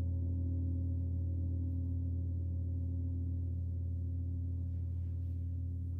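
Gong resounding in a long sustained hum: a deep low tone with many overtones ringing above it, holding steady and fading only slightly.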